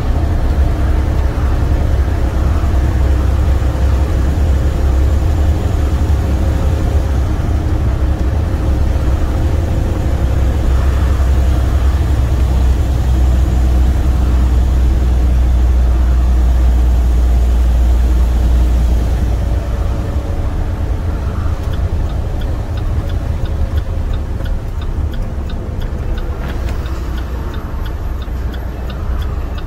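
Semi truck's International MaxxForce 13 diesel engine running steadily under way, heard inside the cab as a deep drone, a little quieter in the last third. Near the end a regular ticking starts.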